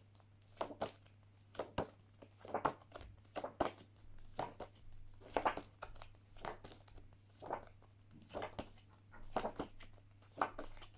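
A woman quickly saying isolated phonics letter sounds, about one a second, many of them hissing consonants such as 'sh', 's', 'z' and 'f', in a small room.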